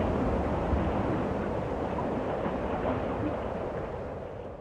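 Steady rushing wind noise on the microphone, fading down near the end.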